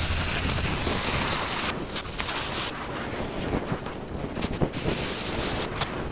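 Wind buffeting the microphone, with a few sharp clicks and knocks of tools on metal about two seconds in, near the middle and near the end.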